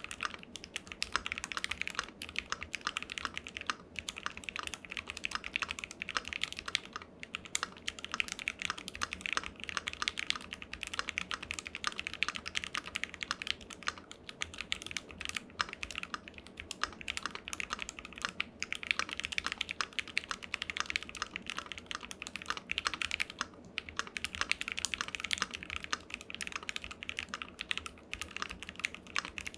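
Continuous fast typing on a Keychron Q2 aluminium 65% keyboard with Gateron Box Ink linear switches on a steel plate. It is a dense stream of keystroke clacks with a couple of brief pauses.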